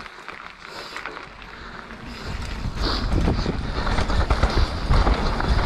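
Mountain bike riding down a dirt jump line: tyres rumbling on the trail and wind buffeting the camera microphone, with scattered knocks and rattles from the bike. It gets much louder about two seconds in.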